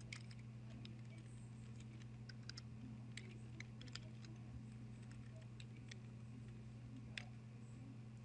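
Faint computer keyboard typing: scattered, irregular keystrokes over a steady low hum.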